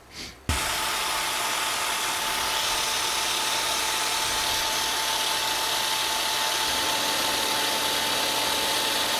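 Milling machine starting about half a second in and then running steadily, cutting, with an even whine over a noisy hiss.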